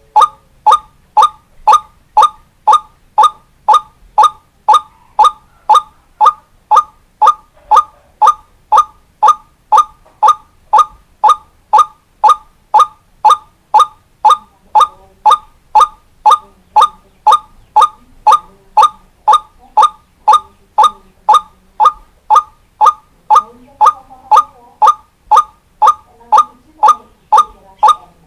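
White-breasted waterhen (ruak-ruak) call played as a looped lure recording: one short, identical note repeated evenly about twice a second.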